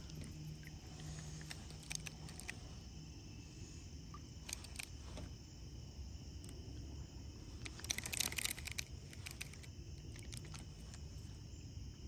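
Faint creek-side ambience: insects chirping steadily over a low rumble, with a few soft clicks and knocks, a short cluster of them about eight seconds in.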